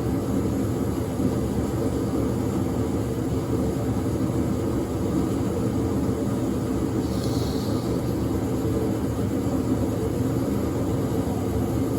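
A steady, even mechanical rumble with no breaks or changes, and a brief faint hiss about seven and a half seconds in.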